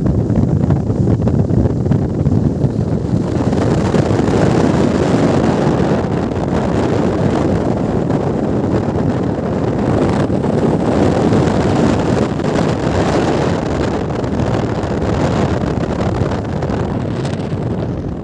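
Strong wind buffeting the microphone: a loud, steady rush of noise that grows brighter and fuller about three seconds in.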